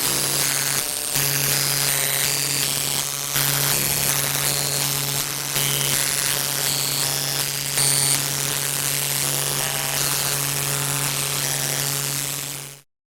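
Electronic noise: a steady low buzz under a rapid scatter of short beeps jumping between pitches, cutting off abruptly near the end.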